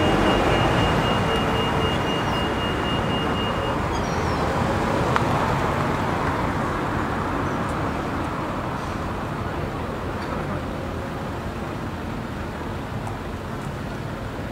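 Street traffic: a car passes close by at the start and fades away, leaving a steady wash of town traffic noise. A single sharp click comes about five seconds in.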